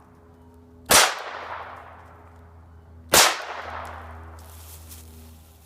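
Two gunshots about two seconds apart, each with a long echoing tail.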